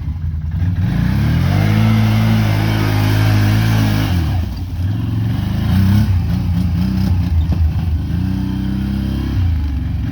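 A vehicle engine revving hard and held at high revs, dropping about four seconds in, blipping a few times, then held high once more before falling back to idle near the end.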